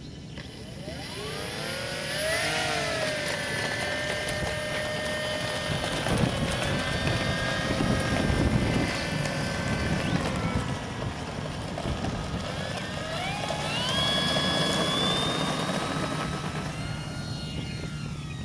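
Electric motor and propeller of a T-28 Trojan RC model airplane spinning up with a rising whine, holding a steady pitch on the takeoff roll, then rising again to full throttle as the plane lifts off and climbs away.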